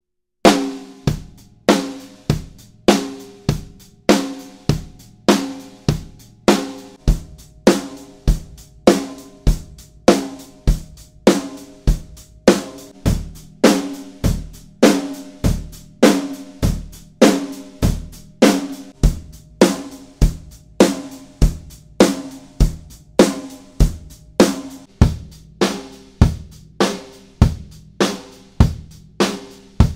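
Acoustic drum kit played in a steady groove, a heavy stroke a little under once a second with kick, snare and cymbals, the drums ringing after each hit. It is heard solo through a single Warm Audio WA-47jr large-diaphragm FET condenser microphone.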